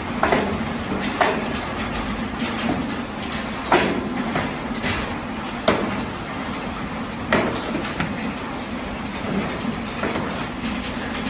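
Manure being scraped out of a pig pen: sharp scrapes and knocks of the tool on the floor, every second or two, over a steady barn hum.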